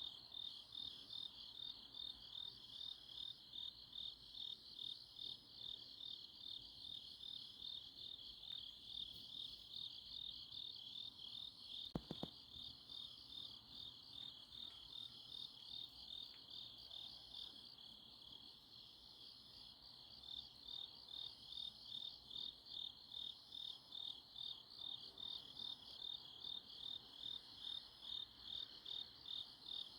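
Grass insects, mainly crickets, chirping in a steady, evenly pulsing high-pitched chorus of about two pulses a second, easing off briefly around the middle. A single short knock about twelve seconds in.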